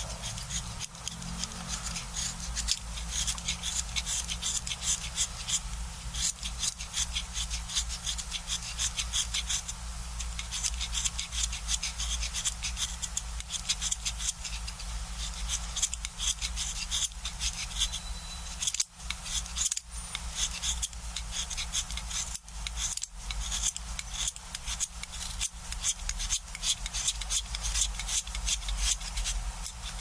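Utility knife blade shaving wood off a coloured pencil by hand: a steady run of short, crisp scraping strokes, several a second, with a few brief breaks about two-thirds of the way through.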